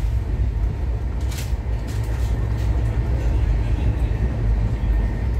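Passenger train running, heard from inside the coach: a steady low rumble of wheels on rail, with a sharp clack about a second and a half in.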